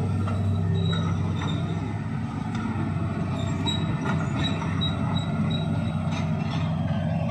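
Hitachi excavator's diesel engine running steadily at trench-digging work, with a string of short high squeaks from about a second in, from the working machine's metal parts.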